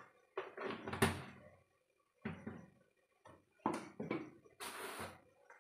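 A run of about six short knocks and scrapes, uneven in spacing, of objects being handled; the last is a longer scrape.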